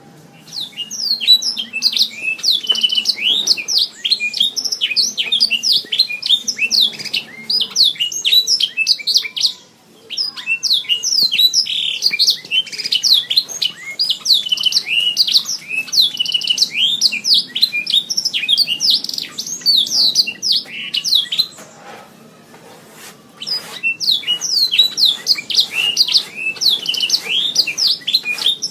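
Domestic canary singing: fast rolling trills and chirped phrases in three long bursts, broken by short pauses about ten seconds in and again a little past twenty seconds.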